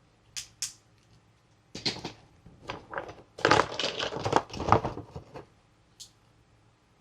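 Toy packaging being handled and opened: two sharp clicks, then a few seconds of loud crinkling and crackling in uneven bursts, and one more click near the end.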